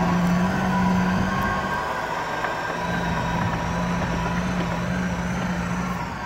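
Stock UAZ-469 jeep engine pulling steadily as the vehicle drives off over dry, dusty ground, getting gradually fainter.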